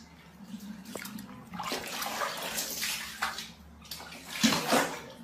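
Water splashing in a plastic tub as a kitten thrashes and climbs out, in several uneven bursts.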